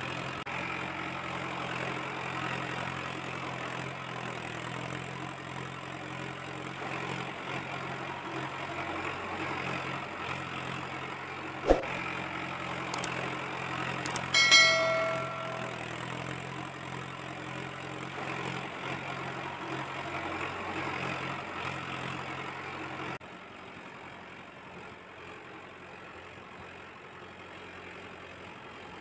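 Steady engine-idle hum, like a tractor ticking over. About halfway through comes a click and then a ringing bell chime from a subscribe-button animation. About three-quarters of the way in, the hum stops and only quieter background noise is left.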